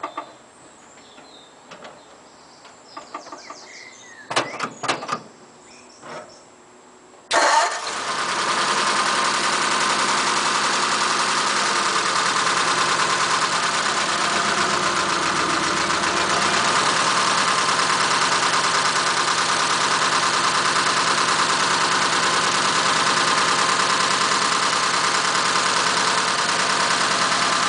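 1941 Ford pickup's flathead V8 cold-starting: after a few faint clicks and knocks it catches suddenly about seven seconds in, with no long cranking, and settles into a steady idle. The stone-cold engine was primed with two pumps of the accelerator pedal.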